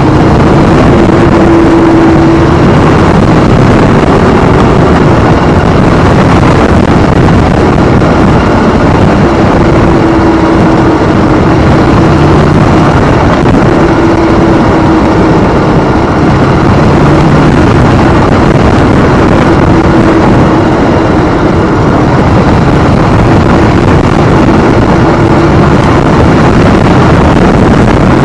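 Harley-Davidson motorcycle under way, its engine running at a steady pace beneath a constant rush of wind noise on the microphone.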